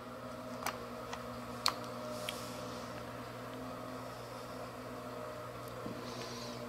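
Steady electrical hum, with a few light metallic clicks in the first two seconds as the facing head's feed selector is handled.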